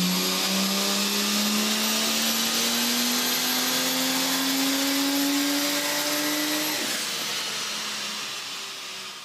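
Ford FG Falcon G6E Turbo's turbocharged 4.0-litre inline-six pulling under load on a chassis dyno, its pitch rising steadily as the revs climb, with a hiss and a thin high whine over it. About seven seconds in the throttle closes, the note drops away and the sound fades.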